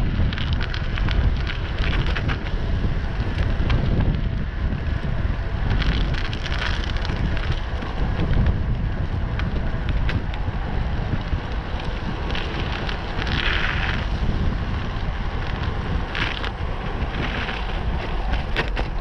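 Wind buffeting the microphone of a moving camera, a steady heavy rumble with a few brief louder hisses, the longest about two-thirds of the way through.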